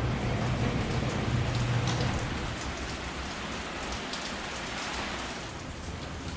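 Heavy rain falling steadily, a dense, even patter. A low rumble underneath fades out over the first two seconds.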